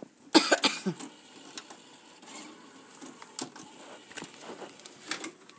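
Handling noise: plastic DVD cases being moved and clicked about, with rustling and scattered sharp clicks and a louder scuffing noise about half a second in.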